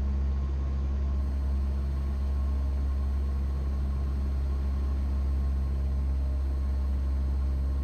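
Cessna 172 piston engine and propeller droning steadily, heard from inside the cabin in flight, with no change in pitch or power.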